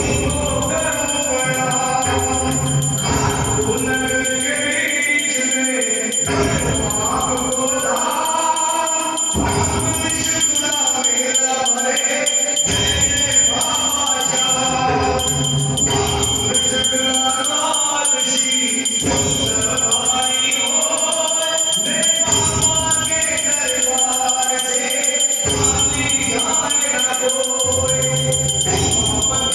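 Devotional Hindi bhajan to Khatu Shyam: singing over music with a steady beat.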